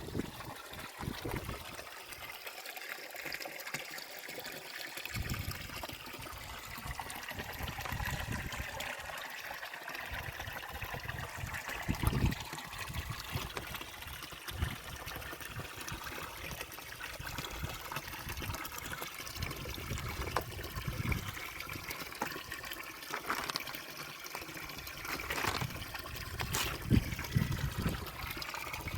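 Running water trickling steadily, with a few dull low bumps.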